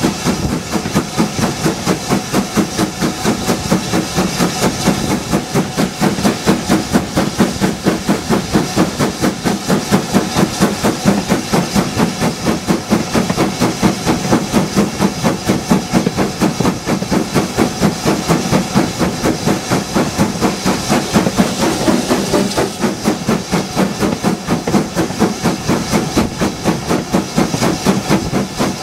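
BR Standard Class 5 4-6-0 steam locomotive No. 73082 Camelot working hard under way, heard close up from beside its boiler: a steady, quick beat of exhaust chuffs over the rumble of the wheels and motion.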